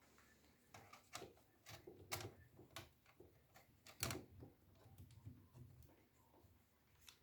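Faint, scattered clicks and taps of small parts and screws being handled, a dozen or so in the first four seconds, the loudest about two and four seconds in, then only a few.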